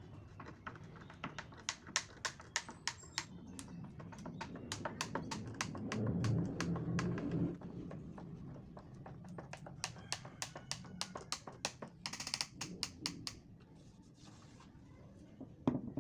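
A rapid, irregular run of sharp clicks and light taps, with a low hum for about a second and a half around the middle and a louder knock near the end.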